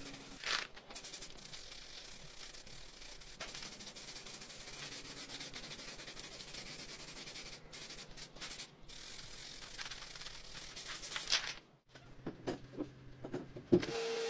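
Aerosol spray paint can hissing as paint is sprayed, with a few short breaks as the nozzle is let go. Near the end the hiss stops and a run of sharp clicks and knocks follows.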